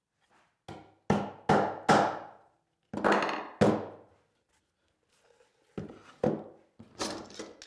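Sharp knocks on wood and metal: a hammer tapping a freshly glued handle on a clamped wooden box, then metal bar clamps clattering as they are taken off and set down on the workbench. About half a dozen knocks come in the first half and a second cluster near the end.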